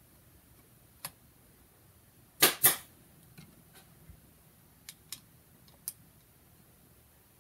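Hard plastic parts of an animatronic head base and a screwdriver being handled: scattered light clicks and taps, with two loud sharp clacks in quick succession about two and a half seconds in.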